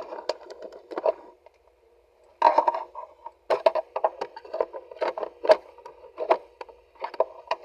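Hands working on the car's centre-console trim and USB receptacle: a run of irregular plastic clicks, knocks and scrapes, with a short pause about a second and a half in.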